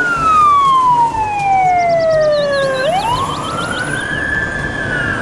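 Fire engine siren wailing: a long tone slides slowly down, sweeps back up about three seconds in, and starts falling again near the end. A string of short high chirps sounds around the middle, over a steady road-noise hiss.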